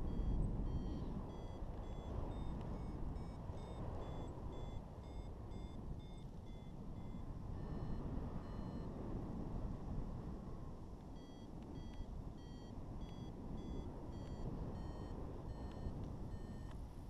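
Paragliding variometer beeping in quick short chirps whose pitch steps up and down, its signal of climbing in lift, with a pause of a few seconds around the middle. Under it, steady wind rush on the microphone.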